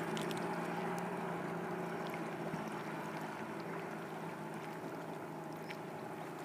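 Outboard motor of a small inflatable boat running steadily, slowly fading as the boat moves away.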